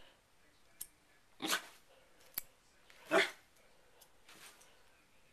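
A corgi barking twice, about a second and a half apart. Each bark follows a sharp click of a hair clip snapping open or shut.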